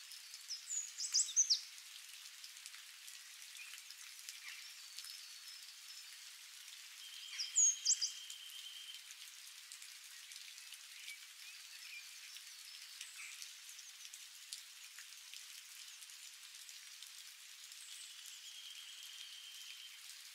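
Rain falling steadily on leaves and surfaces, a soft even hiss. A bird breaks in twice with a short burst of high chirps, about a second in and again around eight seconds in. A thin high note is held for a second or two now and then.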